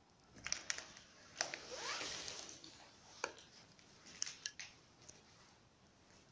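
Footsteps crunching and scraping over broken glass and debris: irregular sharp cracks in clusters, with a longer grinding scrape about a second and a half in.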